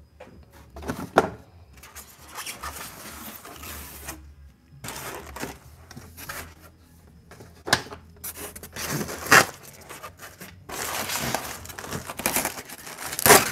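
Foam packaging and model-plane parts being handled in a shipping box: stretches of rubbing and scraping noise with several sharp knocks, the loudest near the end.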